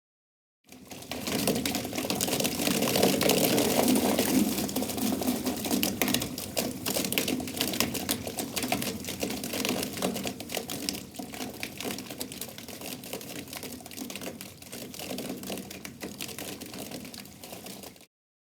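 Water sound effect: a dense, rapid crackle of small water splashes over a hiss. It starts abruptly, is loudest in the first few seconds, slowly eases off and cuts off sharply near the end.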